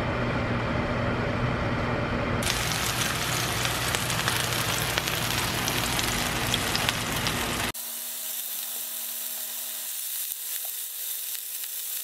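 A microwave oven humming as it runs. From about two seconds in, a chicken breast sizzles loudly, frying in oil in a nonstick pan. About eight seconds in, the sizzling drops to a quieter, thinner hiss.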